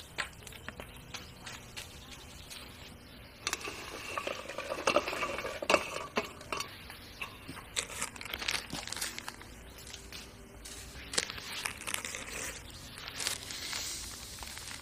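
Crackly rustling and sharp taps of handling food, loudest a few seconds in, then scattered ticks and taps as salt is poured onto red chillies in a wooden mortar.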